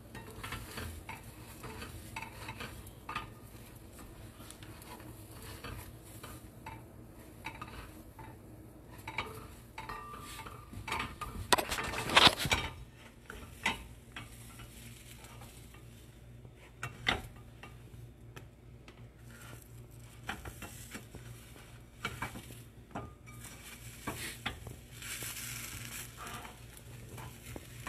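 Plastic spatula scraping and knocking against a stainless steel frying pan as a pancake is worked loose and turned, over faint sizzling. A cluster of louder knocks comes about twelve seconds in, and a single sharp one comes a few seconds later.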